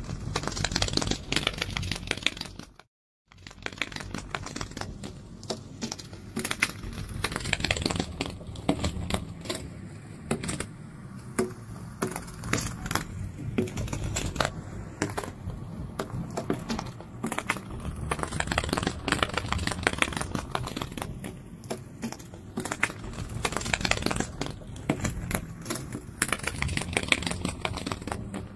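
Fluttering-wings sound effect: a dense, rapid clicking and rustling that swells and fades every few seconds, with a brief cut to silence about three seconds in.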